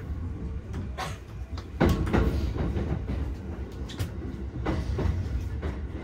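Joban Line electric commuter train heard from inside the car: a steady low rumble of wheels on rail, with irregular clacks over the rail joints. It gets louder about two seconds in. The train is running under a speed restriction for strong wind.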